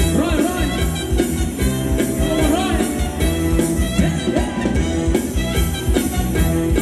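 Live band playing Thai ramwong dance music with a steady drum beat and a gliding melody line over it.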